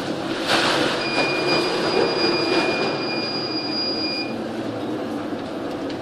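Storm wind and heavy seas breaking over a ship's bow, a dense rushing noise with a surge of spray about half a second in. A high, steady whistle comes in about a second in, holds for about three seconds, then stops.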